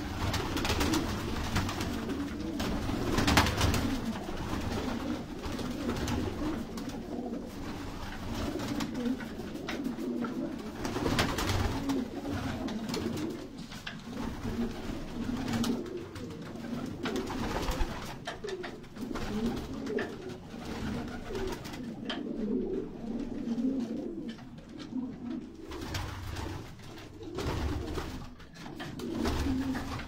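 Many domestic pigeons cooing together, overlapping calls filling the loft, with brief wing flutters now and then.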